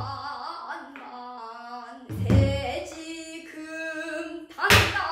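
A woman singing a Namdo danga in Korean traditional vocal style, holding long wavering notes. Deep buk barrel-drum strokes land about two seconds in and again near the end.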